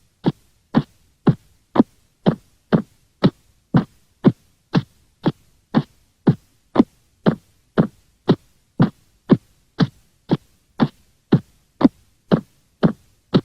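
Cartoon sound effect: a short tone that sweeps quickly down in pitch, repeated evenly about twice a second.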